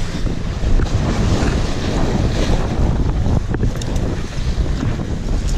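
Wind buffeting the microphone over waves washing against the boulders below, with a few short clicks.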